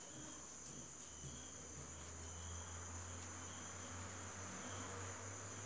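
Crickets trilling steadily in the background, a faint continuous high-pitched drone, over a low hum.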